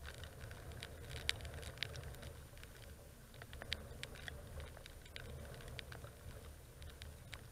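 Raindrops ticking irregularly on the camera housing, over wind rumbling on the microphone.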